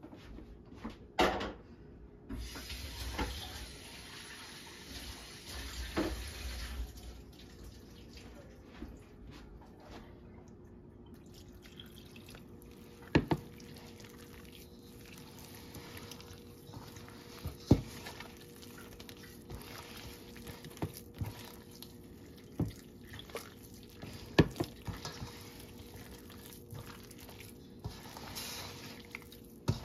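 Kitchen work sounds: water running for a few seconds near the start, then occasional sharp knocks and clinks of utensils and dishes over a faint steady hum.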